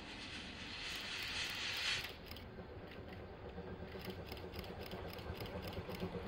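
Chichibu Railway's C58 steam locomotive approaching from a distance: faint, even exhaust beats that grow louder toward the end. About two seconds in, a swelling hiss cuts off suddenly; it is the loudest sound.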